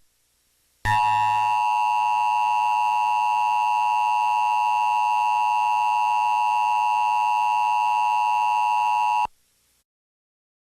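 Emergency Alert System attention signal: a steady two-tone alarm that starts about a second in, holds unchanged for about eight seconds and then cuts off sharply. It is the tone that comes before a broadcast tornado warning.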